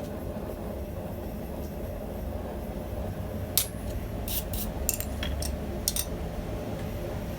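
A run of light metal clicks and clinks, about eight in two and a half seconds, from small steel stamps being handled, over a steady low rumble.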